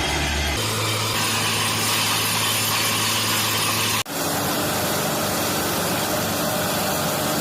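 Borewell drilling rig's engine running steadily under load, with a brief break about four seconds in.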